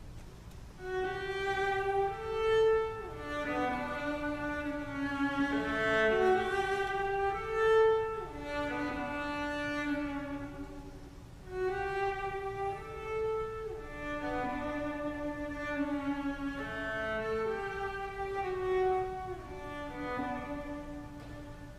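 Solo cello playing a slow, bowed melody of held notes, with a short break in the phrase about halfway through.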